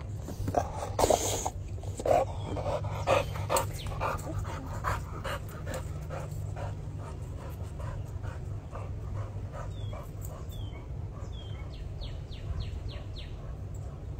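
A dog panting, quick breaths at about two a second, louder in the first few seconds and fading later, over a steady low rumble. A few short high chirps come near the end.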